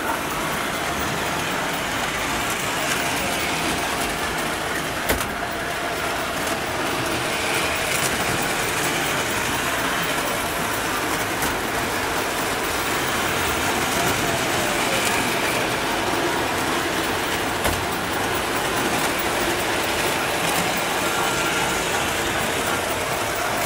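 Model trains running on a layout: a steady rolling rumble and clatter of wheels on track, with a couple of sharp clicks.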